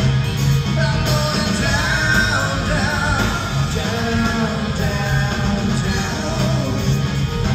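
Live rock band playing, with electric guitar, bass guitar and drums, and the lead singer singing a melody line over them from about a second in until near the end.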